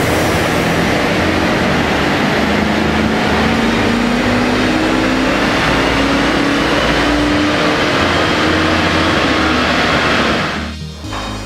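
Audi A6 3.0 V6 TDI bi-turbo diesel at full load on a chassis dyno during a power run, its revs climbing slowly through the pull together with the steady noise of the tyres on the rollers. About ten and a half seconds in the pull ends and the sound drops away.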